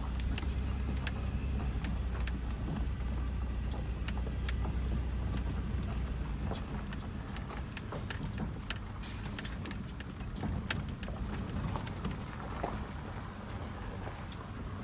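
Toyota 4Runner driving slowly on a gravel road, heard from inside the cabin: a steady low engine and road drone with frequent sharp clicks and ticks of gravel and small stones under the tyres. The drone eases off about halfway through.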